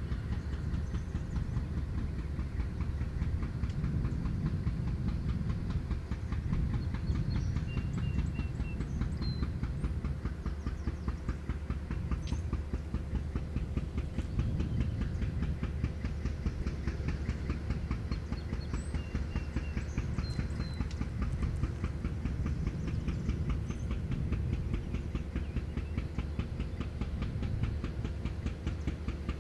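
Freight train rolling by with a steady low rumble and fast, even clicking of wheels over the rails.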